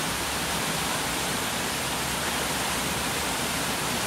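A steady, even rushing hiss of wet outdoor background noise, with no distinct events in it.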